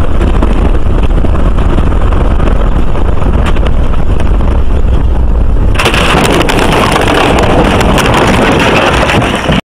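A vehicle running down a rough dirt road, heard as heavy road rumble and wind buffeting on the camera's microphone. About six seconds in, the noise suddenly turns louder and harsher with a run of knocks as the vehicle crashes and the camera tumbles; the sound stops abruptly near the end.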